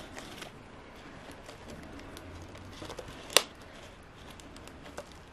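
Quiet handling of a clear plastic cup enclosure, with one sharp click about three and a half seconds in and a fainter one near the end.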